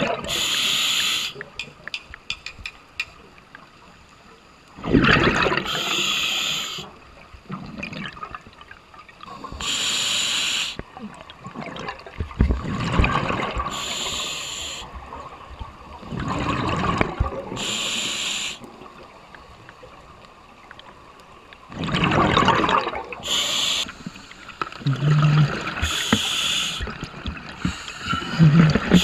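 Scuba regulator breathing underwater: a hiss on each inhalation alternating with a burst of bubbling on each exhalation, about one breath every four seconds.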